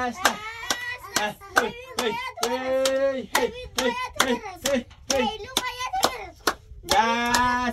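Hands clapping a steady beat, about two claps a second, with a voice singing along over the claps.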